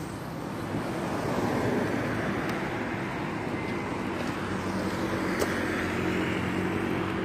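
Motorcycle engines running steadily with road noise, an even drone with no revving or sudden sounds.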